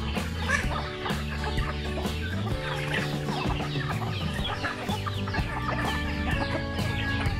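A flock of chickens clucking and chicks peeping while they peck at scattered feed, over background music.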